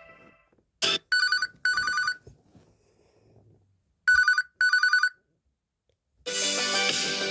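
Samsung Galaxy A36 5G's speaker playing an old-style telephone bell ringtone: two short trilled rings, a pause of about two seconds, then two more. A brief click comes just before the first ring, and a musical ringtone starts near the end.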